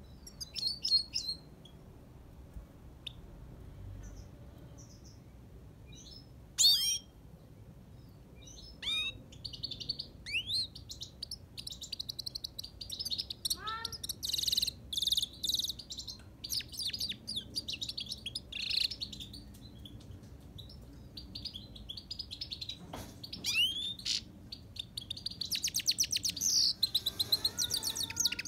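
Himalayan goldfinch singing: a few separate chirps and rising call notes at first, then from about ten seconds in a long, fast twittering song of trills and quick repeated notes, with the fastest run of repeated notes near the end.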